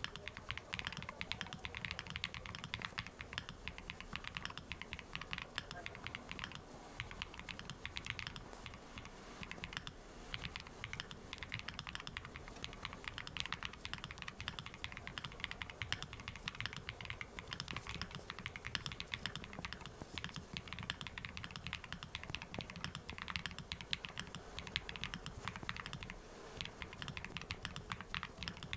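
Continuous typing on a 67-key mechanical keyboard with purple Kucha (苦茶) switches and Botanical keycaps: quick, irregular keystroke clicks without pause. It is recorded through an earphone microphone, so it comes across a little quiet.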